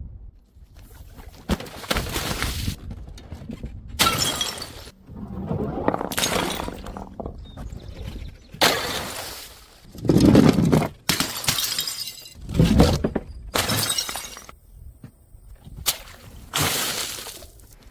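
Glass bottles smashing one after another, about ten crashes a second or two apart, each trailing off in a scatter of breaking glass.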